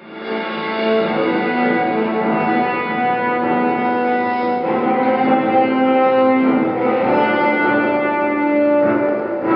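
Background music of slow, sustained string notes, the chord changing every few seconds, fading in at the start.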